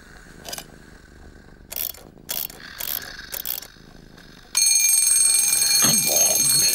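Wind-up twin-bell alarm clock: a few scattered mechanical clicks as it is handled, then about four and a half seconds in its bell alarm starts ringing loudly and continuously.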